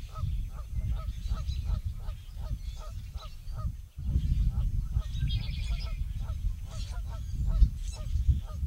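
Flock of geese honking, a dense chorus of overlapping calls, over a low rumble. A short high songbird trill comes in about five seconds in.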